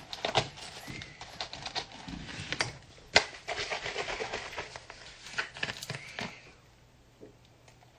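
Close rustling with a quick run of small clicks and knocks, dying away about six and a half seconds in.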